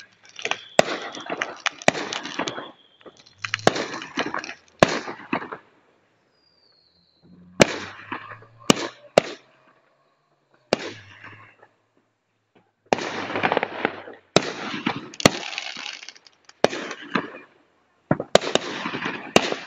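Aerial fireworks going off in clusters: sharp bangs, each followed by about a second of crackling, with short quiet gaps between volleys. There is one brief high whistle about six and a half seconds in.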